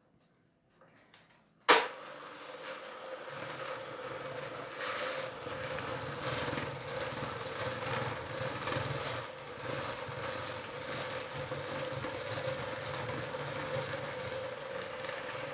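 An electric hand mixer clicks on just under two seconds in, then runs steadily with a constant whine. Its beaters are creaming butter and powdered sugar in a stainless steel bowl, beating them until pale, and a lower hum joins about three seconds in.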